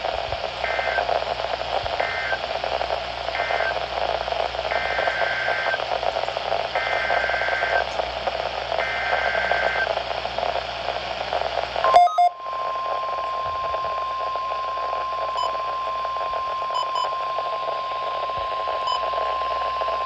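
A weather radio receiving a NOAA Weather Radio alert over static. First come six bursts of two-pitch digital data warble, three short and then three longer: the SAME alert codes. A little past halfway a click cuts in and the steady 1050 Hz warning alarm tone starts and holds.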